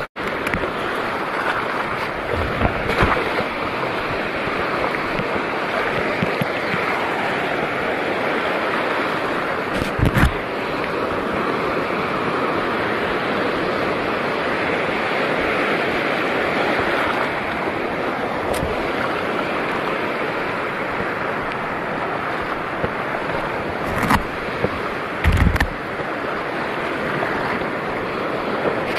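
Steady wash of sea water and surf, with a few short low bumps on the microphone, one about ten seconds in and two close together near the end.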